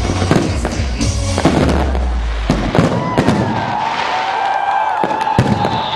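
Fireworks display: rapid bangs and crackling shell bursts, with music playing underneath. A steady low hum stops about halfway through, and a long held tone starts about halfway through.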